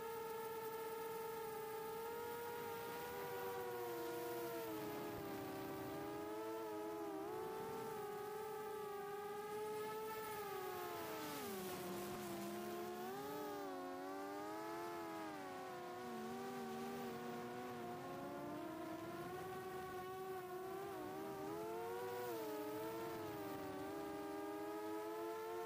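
Brushless motors and propellers of a 4-inch FPV quadcopter (HGLRC 1303.5 4500kv motors), heard through the onboard camera's microphone: a whine of several close pitches that keeps gliding up and down with throttle, dipping lowest about halfway through.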